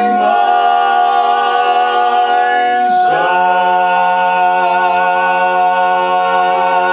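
Four men singing a cappella in harmony with no words, holding sustained chords. One chord lasts nearly three seconds, then there is a short break, then a long held final chord.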